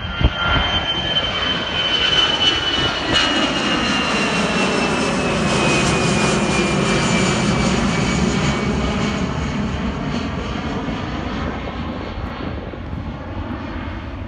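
Airbus A320-200 jet airliner's twin turbofan engines at climb power as it passes overhead just after takeoff: a loud engine buzz and roar that swells to a peak about halfway through and then fades as it draws away, with a high whine that slides steadily down in pitch.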